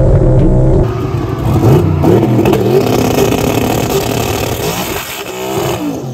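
Twin-turbo car's engine at full throttle. A steady high-rev note changes about a second in, and the revs then climb and drop repeatedly, as at gear changes on a hard acceleration run.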